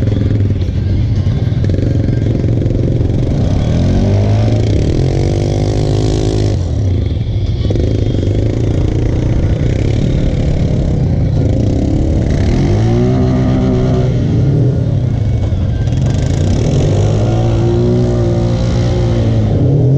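Polaris Sportsman XP 1000 ATV engine running at low speed, its revs rising and falling three times as the quad is ridden slowly through dirt.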